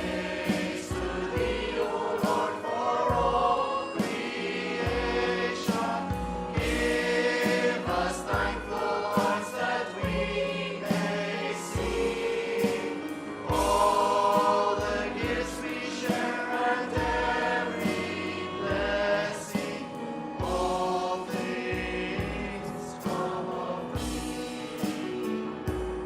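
Church worship group singing a hymn together, backed by a praise band with steady drum beats.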